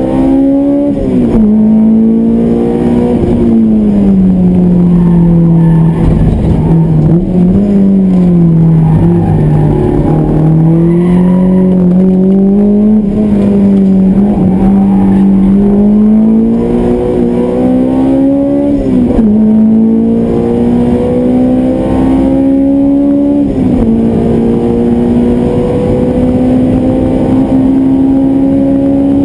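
Honda S2000's four-cylinder VTEC engine heard from inside the cabin, running on track through an aftermarket exhaust and intake. The engine note sinks as the car slows into a corner and holds low through it. It then climbs hard toward 8000 rpm, with two sudden drops in pitch near the end as it shifts up.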